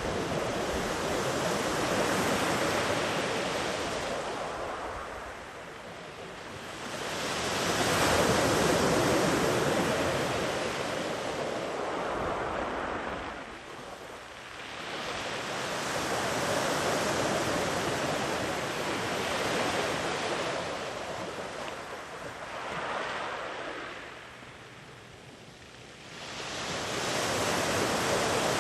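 Sea waves rolling in and breaking on a beach, the surf swelling and fading in slow surges every several seconds, the loudest about eight seconds in.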